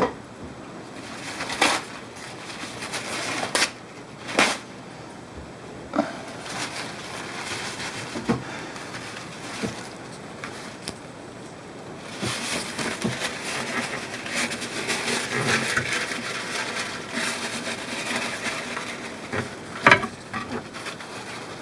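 Handling noises from hands-on work: scattered sharp knocks and clicks, then about seven seconds of rustling and scraping.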